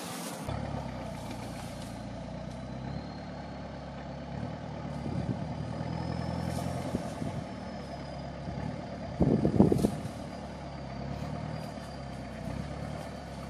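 Toyota Land Cruiser engine running as the 4x4 crawls through brush off-road, with a brief louder burst about nine seconds in.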